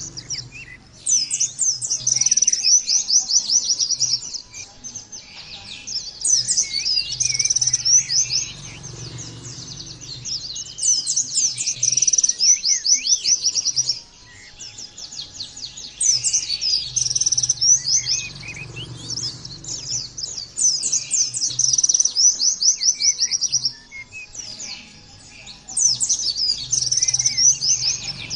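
White-eye (pleci) song: fast, high, twittering trills. They come in repeated bursts of a few seconds each, with short pauses between them.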